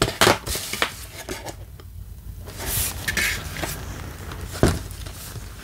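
Hands handling a plastic Blu-ray case and cardboard slipcover: a few light clicks and rustles, with a sharper knock of the case about three-quarters of the way through.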